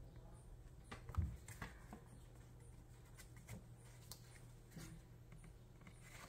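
Faint handling of paper cards and printed album inserts: scattered soft taps and rustles of card and paper, with a louder low bump about a second in.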